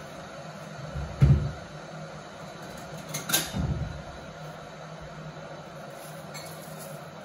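Two dull knocks from kitchen items being handled on the counter, about two seconds apart, the second with a sharp click, over a steady low hum.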